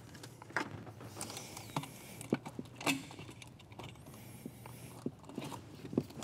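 Scattered sharp clicks, knocks and rubbing as a metal charge tube, its rubber intercooler coupler and a hose clamp are worked into place by hand in an engine bay.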